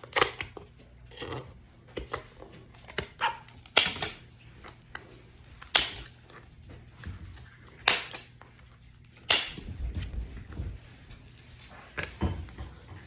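Thin vacuum-formed plastic kit parts being cut and snapped apart by hand: a run of sharp snaps and clicks, one every second or two, with a few louder cracks.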